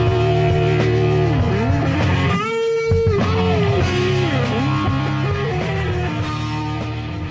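Rock instrumental led by electric guitar: held, bending notes over a steady bass line. About two and a half seconds in, the low end drops out briefly and a single held note rings alone before the full band comes back.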